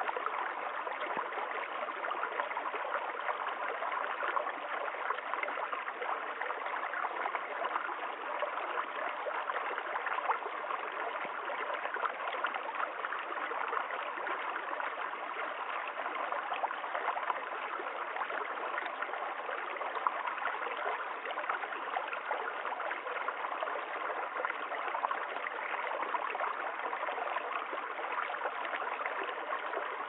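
Small, shallow woodland brook trickling and babbling over stones, a steady, even rush of running water.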